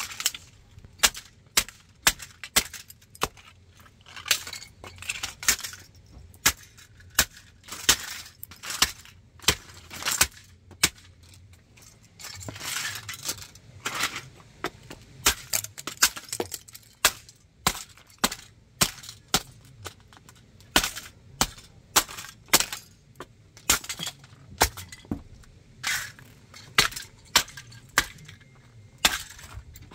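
Heeled sandals stepping down on a model Shell tanker truck's broken plastic and metal parts on concrete: sharp cracks, snaps and clinks, one or two a second, with a few longer crunching stretches in the middle.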